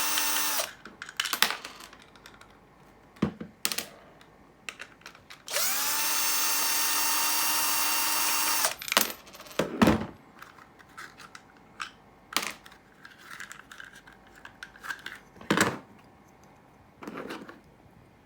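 An electric drill runs at steady speed and stops about half a second in, then spins up again around five and a half seconds in and runs steadily for about three seconds. Sharp clicks and knocks come between and after the two runs.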